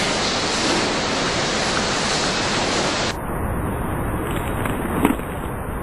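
Steady hiss of background noise, which turns duller about three seconds in, with a single short knock about five seconds in.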